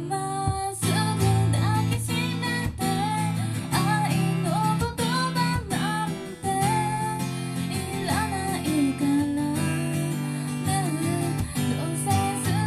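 A woman singing into a microphone over a strummed acoustic guitar, a live voice-and-guitar duo. Her melody slides between notes over the steady strummed chords.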